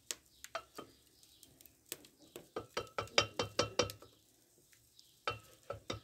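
A metal spoon stirring coffee in a blackened metal pot, scraping and clinking against its sides several times a second. The clinks pause for about a second near the end, then start again.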